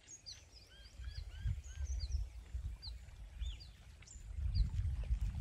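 Small birds chirping repeatedly in short high notes, with a few arched lower calls in the first two seconds, over a low rumble of wind on the microphone that swells about four and a half seconds in.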